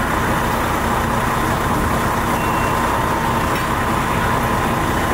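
Fire engine's motor running steadily, with a thin steady high tone over it.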